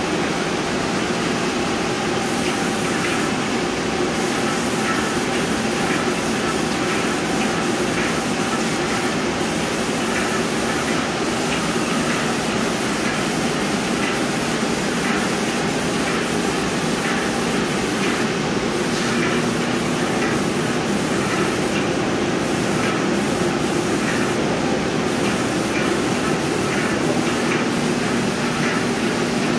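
Tritech airless spray gun hissing steadily as it sprays cabinet coating, with a low hum underneath.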